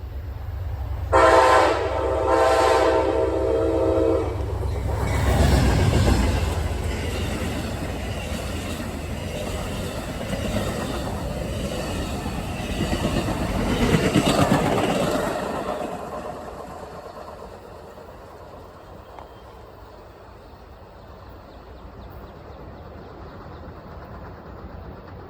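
Diesel passenger train sounding a multi-note horn for about three seconds as it approaches. The locomotive then passes with a low rumble, followed by the cars rolling by with wheel noise that swells and fades away.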